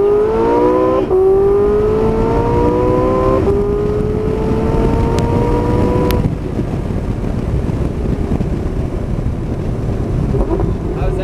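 Porsche 918 Spyder's V8 accelerating hard at full throttle, its note climbing through the revs with two quick upshifts, about one and three and a half seconds in. About six seconds in the engine note drops away as the car lifts off and slows, leaving a steady wind and road rush in the open cockpit.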